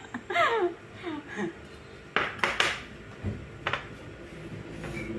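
Plates and cutlery clinking on a table: a few sharp clinks, two close together about two seconds in and another near four seconds.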